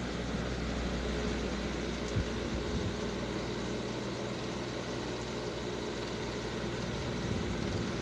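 Steady machine-like whir with a low hum underneath, unchanging throughout, with one faint tap about two seconds in.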